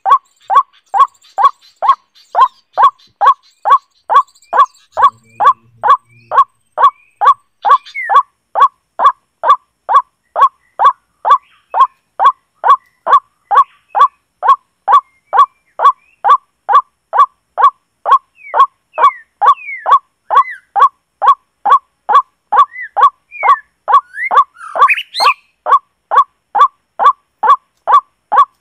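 White-breasted waterhen call played on a loop through a small portable speaker as a lure: one short call repeated about three times a second, evenly and without change. Faint chirps of other birds come in during the second half.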